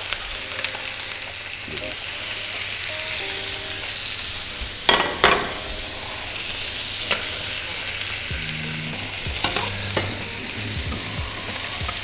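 Squid bodies frying in olive oil in a nonstick frying pan, a steady sizzle. Two sharp utensil clinks about five seconds in and a few lighter knocks later.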